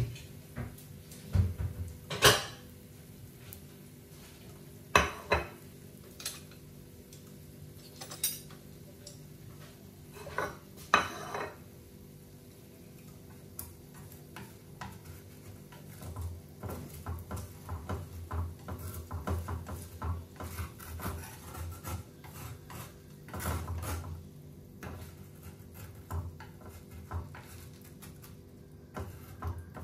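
Kitchen cookware clatter: a utensil clinks against cookware several times, then about halfway through comes a long run of quick tapping and scraping strokes, as in stirring or whisking. A faint steady hum runs underneath.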